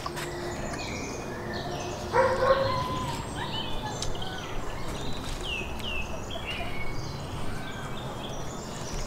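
Birds chirping and calling, with two clear down-slurred chirps about five and a half to six seconds in. About two seconds in comes one louder, short animal call.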